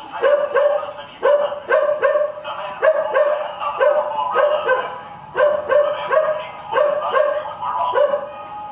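A dog barking over and over, mostly in quick pairs of barks about a second apart.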